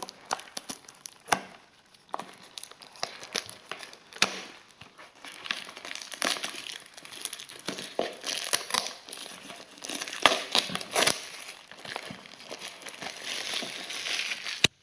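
Plastic shrink-wrap being slit with a hobby knife and peeled off a small cardboard box, crinkling and crackling irregularly with sharp clicks.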